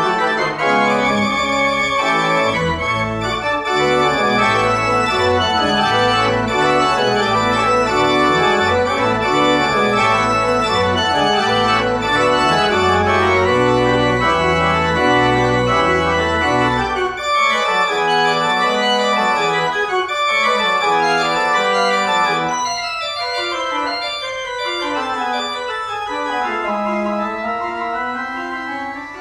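Organ music played on a two-manual organ with pedals: full sustained chords over a stepping pedal bass. About 17 seconds in, the deep bass drops out and lighter, moving lines continue.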